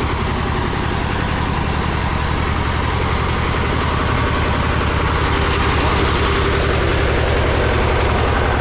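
Heavy engine running steadily at idle, with a low pulsing throb.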